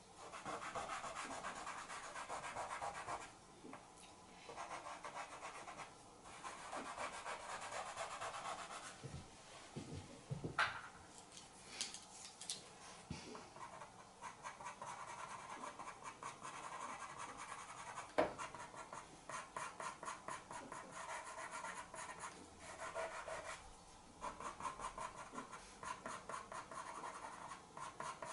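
Pastel pencil scratching across light grey Pastelmat pastel card in rapid short strokes, in runs of a few seconds with brief pauses, as fur is hatched in. A few sharp clicks stand out, one about ten seconds in and one about eighteen seconds in.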